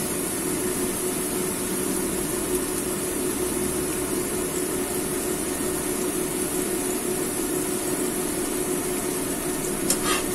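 Diced chicken frying in oil in a pan over a gas burner: a steady sizzling hiss, with a few clicks of a metal spatula against the pan near the end.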